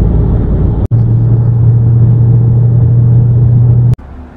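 A car moving at highway speed, heard from inside: steady, loud road and engine drone. It breaks off briefly about a second in, and near the end drops abruptly to a faint hum.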